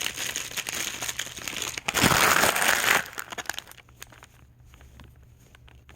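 Packaging bag crinkling as it is handled and opened to take out doll clothes, loudest about two seconds in, then dying down to faint scattered rustles.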